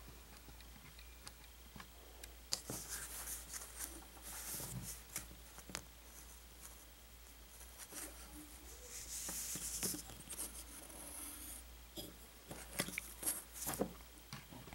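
Fingers handling a plastic LEGO minifigure: faint scattered clicks and rubbing as it is turned around, with a short rustle about nine seconds in.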